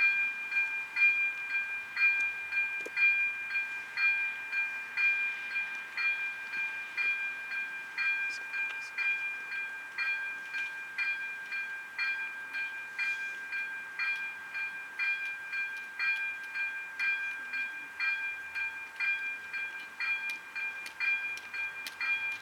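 Electronic warning bell of an AŽD 97 railway level crossing ringing steadily at about two strikes a second, the signal that a train is approaching.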